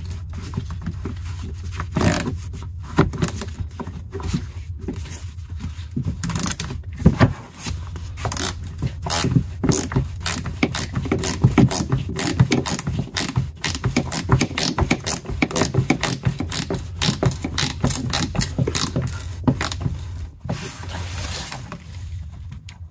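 Ratchet wrench clicking in quick runs as screws are run into the plastic undertray and wheel-arch liner, with a steady low hum underneath.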